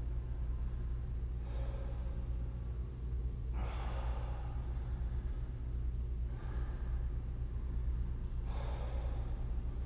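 A man's heavy breathing as he strains through a long plank hold: four slow, audible breaths about two and a half seconds apart, over a steady low hum.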